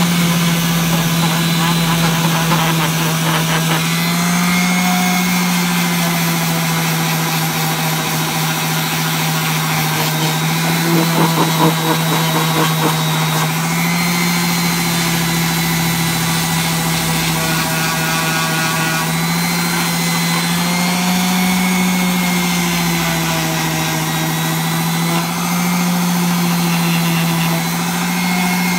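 Electric sanding machine running continuously while smoothing a plastic-welded motorcycle side cover, its motor pitch rising and falling slowly several times. A brief rougher, louder scratching patch about eleven seconds in.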